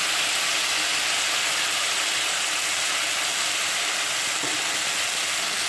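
Vegetables sizzling steadily in hot oil in a kadai as cauliflower florets are tipped in among frying potatoes and tomatoes.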